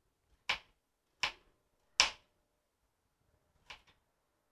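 Kitchen knife slicing a carrot into discs on a white plastic cutting board: three sharp chops about three-quarters of a second apart, then a fainter double tap near the end.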